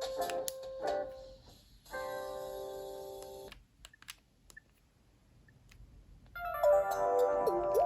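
Nokia 7710 ringtones playing: one melody ends in a held chord that stops about three and a half seconds in. After a short near-silent pause with a few faint clicks, the next ringtone starts with synth notes that slide up and down in pitch.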